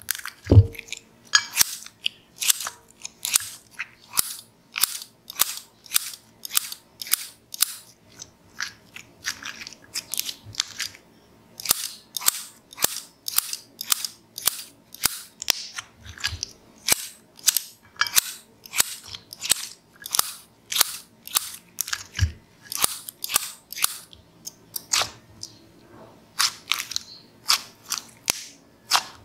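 Scissors snipping through thick slime while it is squeezed and pressed by hand, giving a run of sharp, crisp snips and sticky pops, about two or three a second.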